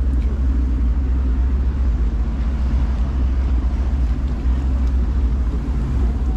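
Boat engine running steadily, a loud, even low drone.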